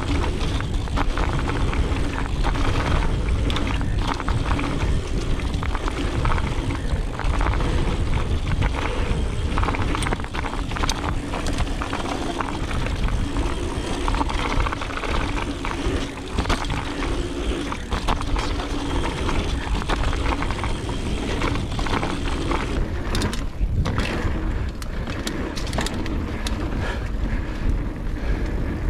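Mountain bike riding fast down a dirt flow trail, heard from a camera on the rider: wind rushing over the microphone, tyres rolling on dirt, and the bike clicking and rattling over bumps.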